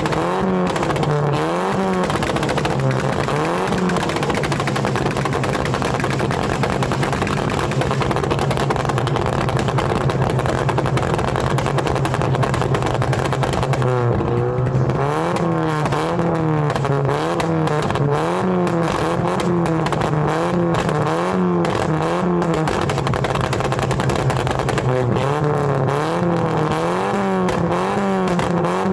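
Audi 80 2.0 four-cylinder engine being revved in repeated quick blips through its exhaust, with sharp popping and crackling from the tailpipe on the overrun (a "popcorn" pop-and-bang exhaust that throws flames). It settles to a steady idle for about ten seconds, then goes back to bursts of revving twice more.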